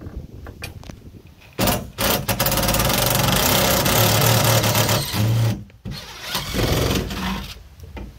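Cordless impact driver running on a bolt at the top mount of an aluminium RV ladder: one long run of about four seconds, then a short second burst.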